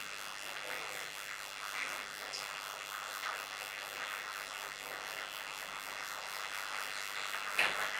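Steady low hiss of room tone with no speech, broken by a brief louder sound just before the end.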